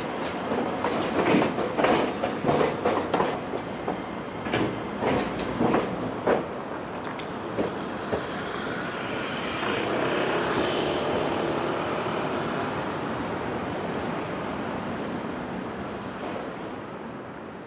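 Iyotetsu streetcars, a broken-down car being pushed by a rescue car, rolling slowly over the track, their wheels clacking repeatedly over rail joints for the first several seconds. Then a smoother running noise swells about ten seconds in and fades near the end.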